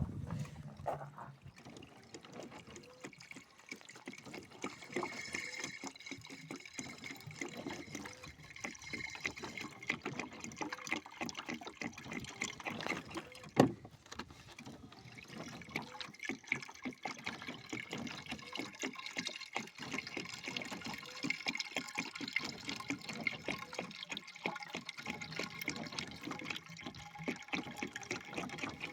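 Coolant in a Citroën C8's cooling system gurgling and trickling as it is sucked in, an irregular bubbling full of small pops, with one sharp knock about halfway through. The cause of the suction is unknown to the owner.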